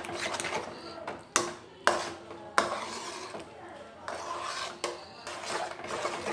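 A spoon stirring thick, sticky cornflour halwa in a metal pan, scraping around the pan, with several sharp knocks as the spoon hits its sides.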